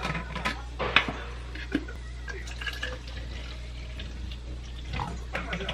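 A plastic water bottle and its cap handled at a kitchen sink and dish rack: several sharp knocks and clicks. A low, steady hum runs underneath.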